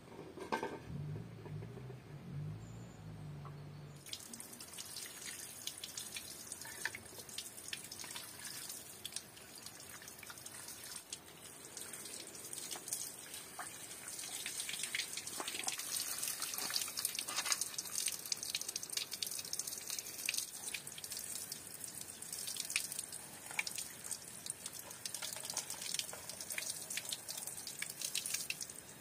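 Water running from an outdoor tap into an aluminium bowl and spilling over it onto stone, with many small splashes and drips. It starts about four seconds in.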